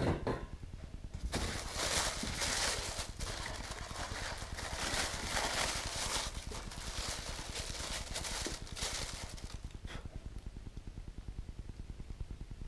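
Packaging rustling, with the light knocks of model parts being handled and unpacked. The rustle starts about a second in and stops near the end, over a steady low hum.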